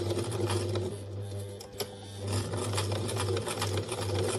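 Electric sewing machine running, stitching across a tote bag handle through several layers of fabric. The motor hum with its rapid needle ticks eases off briefly about a second and a half in, then picks up again.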